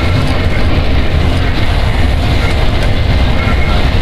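Harsh noise music: a loud, dense, unbroken wall of rumble and hiss, heaviest in the low end, with no pauses or clear rhythm.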